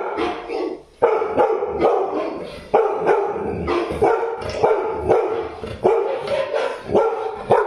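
Dog barking over and over, about two barks a second: a young Labrador retriever barking back at recorded dog barks played on a television, the two mixed together.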